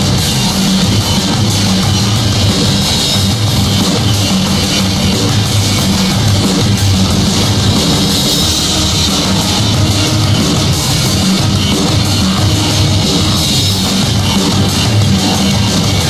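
Loud background rock music with heavy guitars and a steady drum beat.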